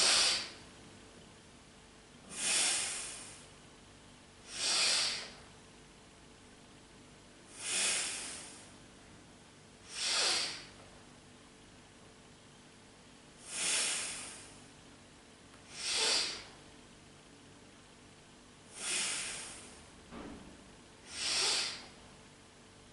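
A woman's deep, forceful breaths, each a short rush of air, about one every two and a half to three seconds, paced to the rise and fall of double leg lifts.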